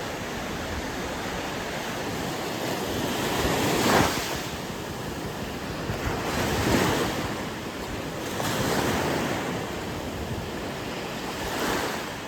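Sea waves washing ashore: a steady surf hiss that swells as four waves break, the loudest about four seconds in, with wind on the microphone.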